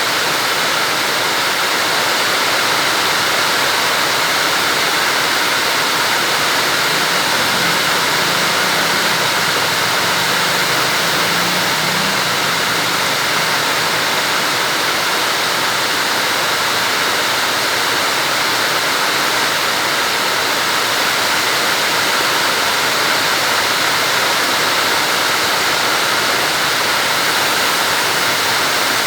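Heavy rain pouring down, a steady dense hiss. A faint low hum comes in for several seconds midway.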